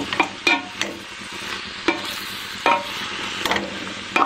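Cut green beans sizzling as they sauté in a metal pressure cooker pot, stirred with a wooden ladle. The ladle makes several short scrapes and knocks against the pot over the steady sizzle.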